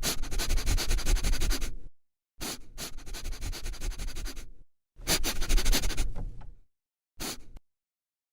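A dog snuffling and rubbing close to the microphone, a rapid scratchy noise in four separate bursts with dead silence between them, the last one short.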